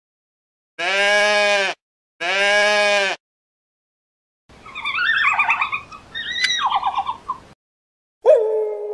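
A goat bleating twice, each bleat about a second long. Then a red panda gives a run of short, high squeaky calls. Near the end an arctic wolf's howl begins, dropping in pitch at the start and then holding steady.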